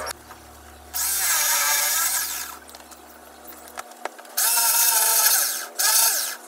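Corded electric drill with a large round boring bit cutting holes in a laminated cabinet panel, run in three short bursts with the motor spinning up and winding down each time.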